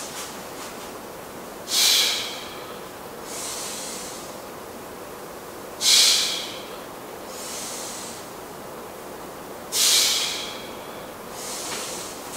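A man breathing hard through his mouth while lifting dumbbells in a chest fly: three sharp out-breaths about four seconds apart, one on each lift, with softer in-breaths between.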